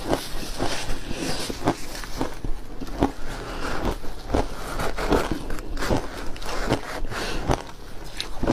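Close-up chewing of soft, frosty freezer ice with matcha tea: a steady run of crunches with each bite, a little under two a second.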